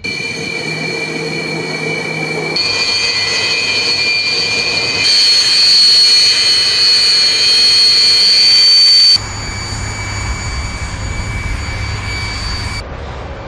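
Su-27 fighter jet engines (twin AL-31F turbofans) running on the ground, a steady high whine over a rushing noise. The sound changes abruptly every few seconds and is loudest in the middle.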